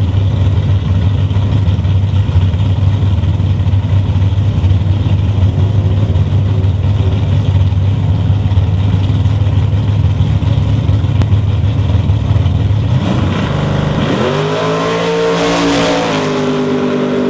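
Fox-body Ford Mustang outlaw drag radial race car's engine running with a steady low drone at the starting line, then about thirteen seconds in it launches at full throttle, the engine note climbing sharply and holding high as the car pulls away.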